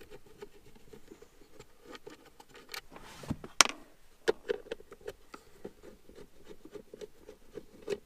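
Phillips screwdriver backing out the screws of a Subaru Forester's plastic e-brake shroud: a run of small ticks and scrapes, with two sharper clicks about three and three and a half seconds in.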